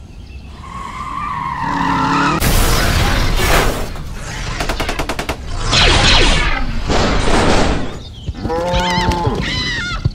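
Layered action sound effects: loud noisy bursts and rapid mechanical clattering, as for a transforming robot. Near the end comes a pitched, warbling cow moo.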